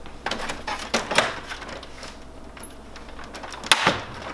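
Plastic clicks and knocks from a Kyocera copier's document feeder being handled, with a sharp, louder click near the end as the feeder is lifted open.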